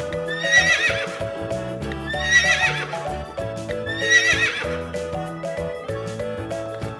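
A horse whinnying three times, each a short quavering neigh, over background music.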